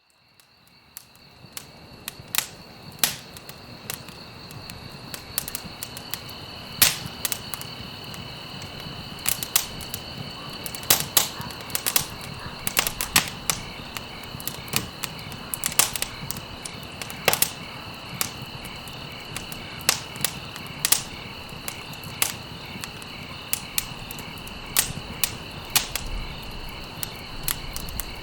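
Campfire of burning stalks crackling and popping: sharp, irregular snaps over a low hiss of flames, fading in over the first two seconds. A steady high insect trill runs behind it.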